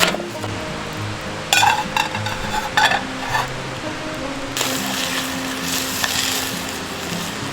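Food frying in a pan, with a clatter of a utensil against the pan about one and a half to three seconds in, then a steady sizzle from about four and a half seconds on. Soft background music with held notes plays underneath.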